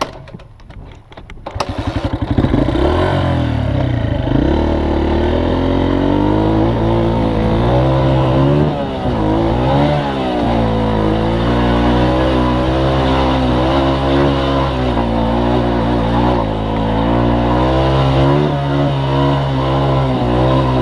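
Off-road vehicle engine picking up from a low, ticking idle about a second and a half in, then running loud under load, its revs rising and falling again and again as it works over rough trail.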